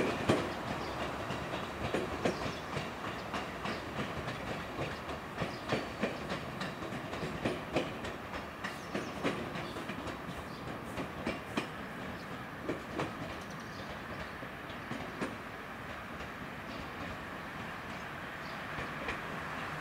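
JR West 213 series electric train rolling slowly through pointwork over a steady rumble, its wheels clacking irregularly over rail joints and switches. The clacks come thick at first and thin out near the end.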